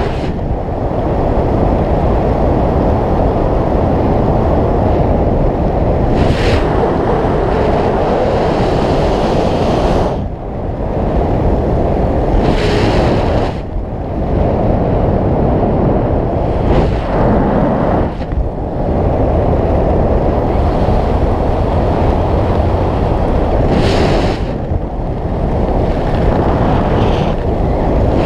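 Wind noise from the airflow over the camera microphone under an open parachute canopy: a steady rush, with a few short louder gusts.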